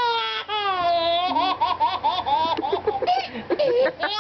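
An 8-month-old baby laughing hard: two long, high squealing notes that slide down in pitch, then a quick run of short, bouncing laugh bursts from about a second and a half in.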